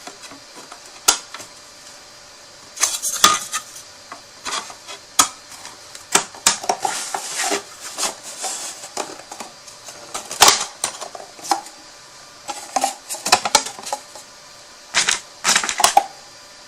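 Pieces of a hand-assembled craft storage box being handled, folded and pressed into place: an irregular run of rustles and small clicks with short pauses between them.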